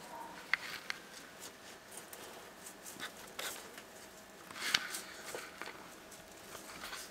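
Faint scattered scratching and rustling of Dumeril's monitor lizards moving over cork bark and soil, with a few sharp clicks.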